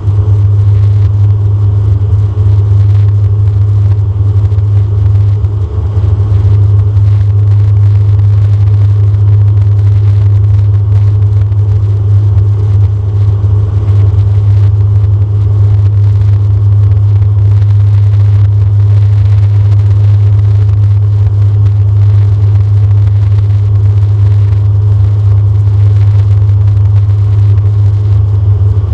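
Loud, steady cabin drone of a DHC-8-Q400's turboprop engines and six-bladed propellers in flight, heard from a seat beside the engine: a deep, even hum from the propellers over a duller airflow rush.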